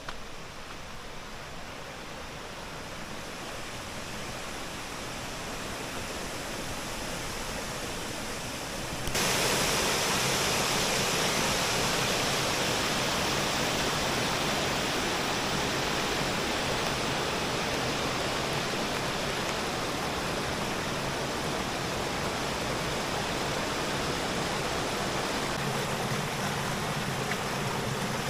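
Water rushing and splashing down the pools of a fish ladder, a steady noise. For the first nine seconds it is fainter and slowly growing, then it is suddenly much louder and stays steady.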